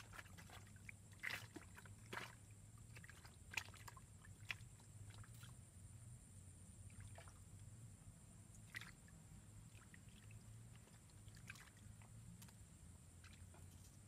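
Near silence: faint outdoor ambience by still water, with a steady faint high-pitched hum and a dozen or so soft, scattered clicks and ticks at irregular intervals.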